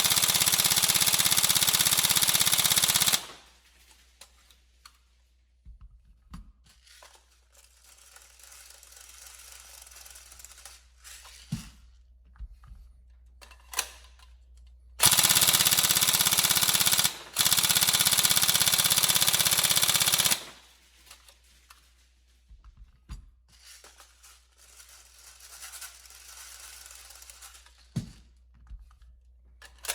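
Tokyo Marui 416 Delta NGRS airsoft electric gun firing long full-auto bursts on a 7.4 V lipo, its gearbox cycling rapidly, during an endurance test of its rebuilt piston. One burst stops about 3 s in; after a long pause with light handling clicks, it fires again for about 2 s, pauses briefly, then fires for about 3 s more.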